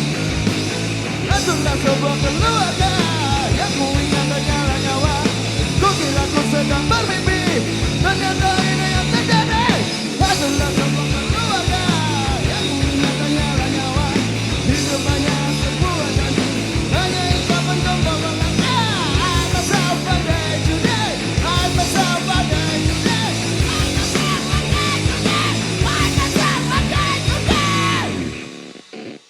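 A rock band plays a fast, loud punk rock song live, with pounding drums and a shouted, sung vocal over the band. The music stops abruptly about a second before the end.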